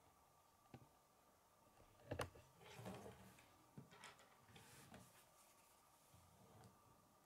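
Faint clicks and handling of plastic K'nex construction pieces: a sharp click about two seconds in is the loudest, followed by a short rustle and a few lighter clicks.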